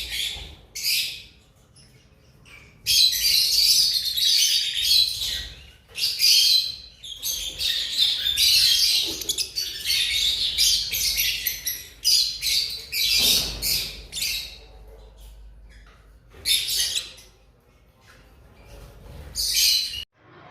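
Lovebirds chattering in high, shrill bouts, with short lulls between them.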